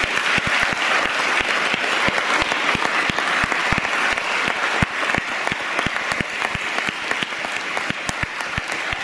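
Crowd applauding: many hands clapping in a steady, dense patter, with some single claps standing out close by.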